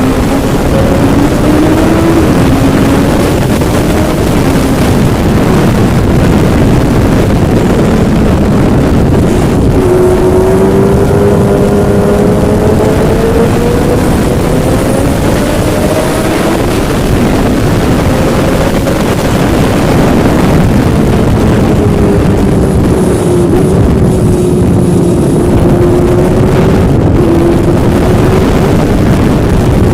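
Yamaha engine running under way, its pitch rising and falling slowly with the throttle, over heavy wind noise on the microphone.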